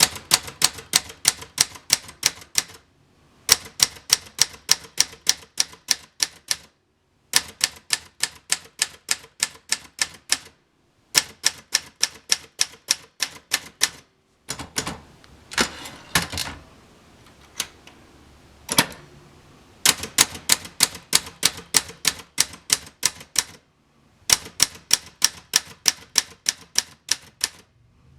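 Adler J5 manual typewriter being typed on: runs of rapid key strikes at about five a second, broken by short pauses. In the middle there is a sparser stretch of fewer, heavier strikes.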